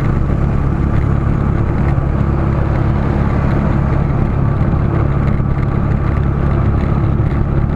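Steady engine hum and road noise of a vehicle moving in highway traffic, heard from on board.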